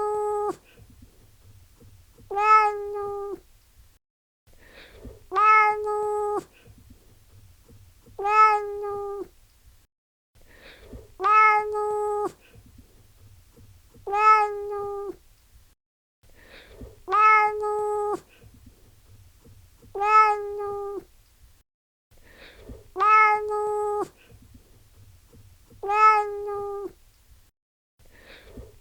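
Domestic cat meowing over and over, about one meow every three seconds. Each meow is held at a steady pitch and dips at the end. The same pair of meows repeats as a loop.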